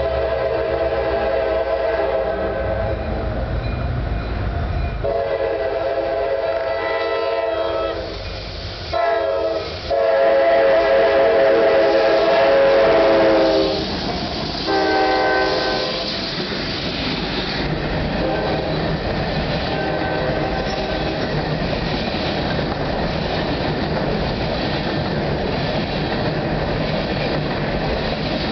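CSX diesel locomotive air horn sounding a sequence of blasts, long, long, short, long, short, over about the first sixteen seconds as the train approaches. The locomotives and a string of hopper cars then roll past, with a steady noise of wheels on the rails.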